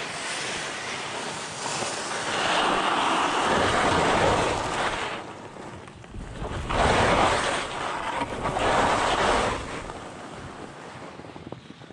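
Skis scraping and sliding over hard-packed snow, a rushing noise that swells in two long surges as the skier turns, with wind buffeting the microphone.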